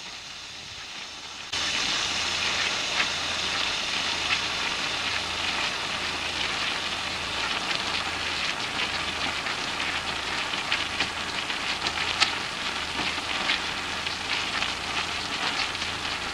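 Cornflour-coated eggplant slices shallow-frying in hot oil in a pan: a steady sizzle with dense crackling and popping, which steps up louder about a second and a half in.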